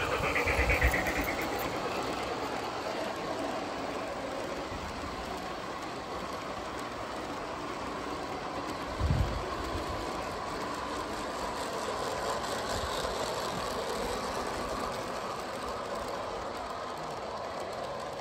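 G gauge model train running along garden railway track, a steady running noise. A single low thump about nine seconds in.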